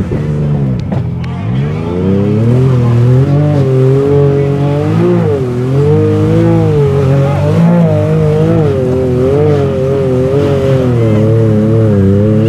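Engine of an off-road mud-bogging vehicle running hard under heavy throttle. Its pitch drops sharply about half a second in, climbs back, then keeps rising and falling as the revs are worked.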